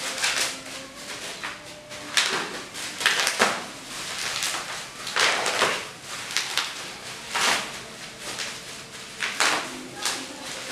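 Clear plastic wrapping being pulled and crumpled off by hand: crinkling and rustling in irregular bursts.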